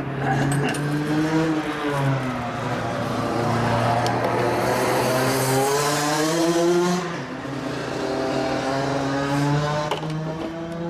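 Racing go-kart engine running on track, its pitch rising and falling repeatedly as it speeds up and slows through the corners. It is loudest about midway.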